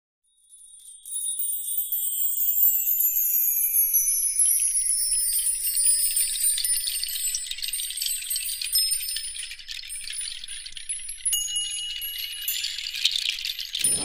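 Shimmering, tinkling chime sound effect of a channel intro animation, all high-pitched, with slowly falling sweeps running through it. It swells in within the first second or so and cuts off suddenly at the end.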